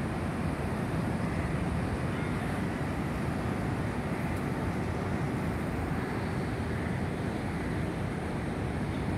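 Steady outdoor city noise, mainly a low, even rumble of traffic.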